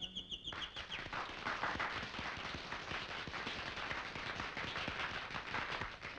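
A fast, high trill, a nightingale's song in the score, stops about a second in, and an audience breaks into steady applause, a dense patter of many claps.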